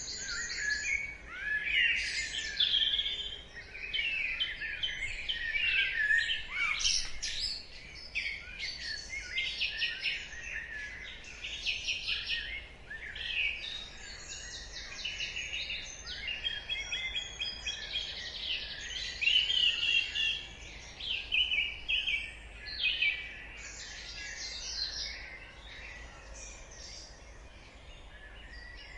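Dawn chorus of many songbirds singing at once: overlapping trills, chirps and rapid note series, with no pause.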